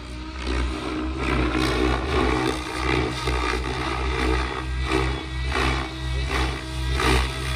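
XL Power Specter 700 electric RC helicopter in flight: a steady low rotor drone with higher tail-rotor tones, the blade noise swelling and fading every second or so as it manoeuvres.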